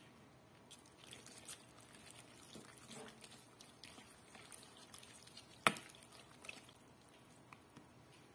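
Metal fork stirring raw chicken skins in egg and marinade in a plastic bowl: faint wet squishing with scattered light clicks of the fork against the bowl, and one sharper click about two-thirds of the way through.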